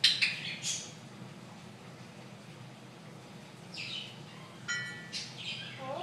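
Alexandrine parakeet calling in short squawks and chirps: a loud burst at the very start, then several shorter calls between about four and five and a half seconds in, one of them a clear pitched note.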